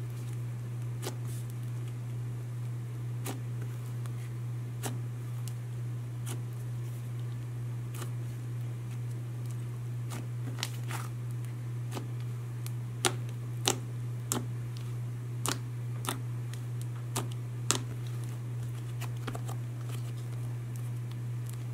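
Sticky butter slime being pressed, poked and pulled by hand, giving scattered small sticky clicks and pops, several sharper ones bunched past the middle. A steady low hum lies under it.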